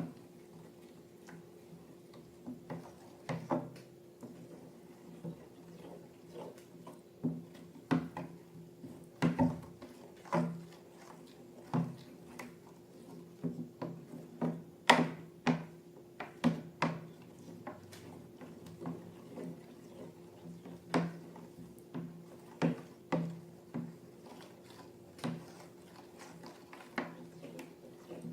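Irregular clicks, taps and small knocks from hands working with balloons and slime containers, over a steady low hum.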